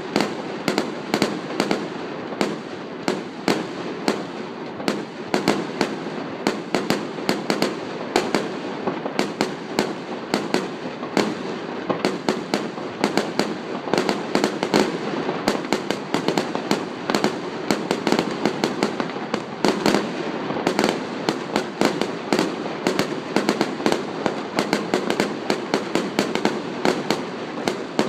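Fireworks going off in rapid succession: a dense, unbroken stream of sharp bangs and crackles, several a second.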